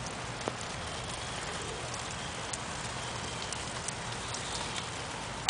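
Steady rain falling, with a few sharp isolated ticks of drops striking something close by.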